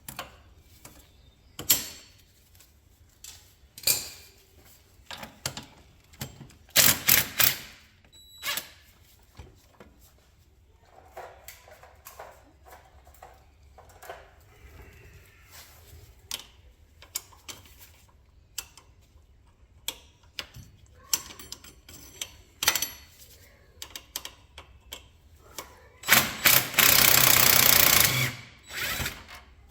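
Hand tools on an ATV's front suspension: metal clinks and knocks of sockets and wrenches, with a ratchet clicking. A louder rattling stretch of about two and a half seconds comes near the end.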